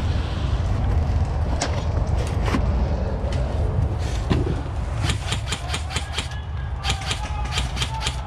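Airsoft gunfire: sharp clicking shots, a few scattered at first, then a quick run of several shots about five seconds in and a few more near the end, over a steady low rumble.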